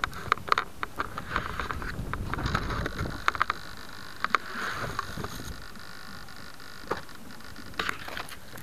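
Irregular sharp ticks and knocks on the foam airframe of a Bixler 2 RC plane, picked up by its onboard camera, over a steady rushing noise. The ticks come thickly in the first few seconds, thin out, and return briefly near the end as the plane is handled.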